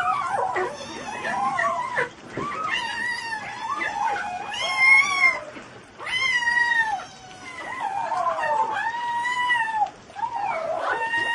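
A pet animal howling in a string of long, wavering calls that rise and fall in pitch, one after another with short gaps.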